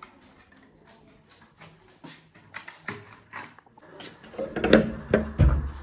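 A steel sliding tower bolt on a wooden door being worked, with loud metal clacks and rattling knocks about four seconds in. Faint clicks and handling taps come before it.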